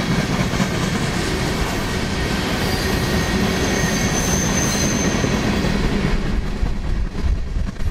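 Empty coal hopper cars of a freight train rolling past on steel rails: a steady rumble and clatter of wheels on track. A faint high wheel squeal rises about halfway through.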